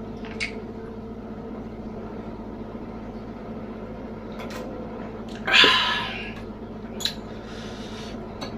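Eating sounds close to the microphone: scattered mouth clicks over a steady low hum, with one loud, hissing burst lasting under a second a little past halfway.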